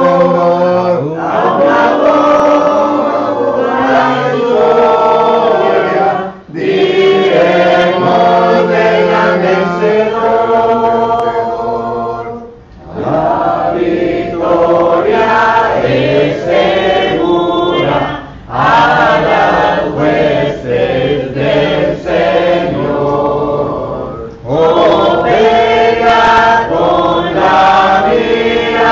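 A church congregation singing a Spanish-language hymn in unaccompanied voices, in the a cappella manner of the Churches of Christ. The singing goes in phrases about six seconds long, with brief breaths between them.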